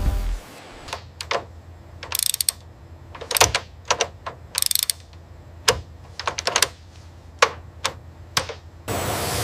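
Background music cuts off just after the start, followed by irregular sharp mechanical clicks and short ratcheting runs, with two brief bursts of high hiss. A steady hiss sets in about a second before the end.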